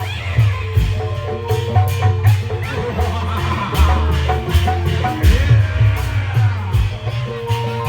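Loud traditional Indramayu reog ensemble music: drums keep a busy beat under held notes from tuned percussion, with many sharp strikes and a heavy pulsing bass.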